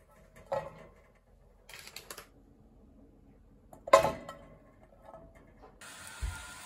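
Pretzels set down on a metal grill tray, with a few light knocks and a rustle and a louder metallic clank about four seconds in. Near the end, butter sizzling in a frying pan as a steady hiss.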